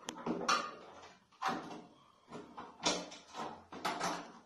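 A circuit breaker panel box being pressed and shifted against a wall by hand: a string of irregular knocks and clatters.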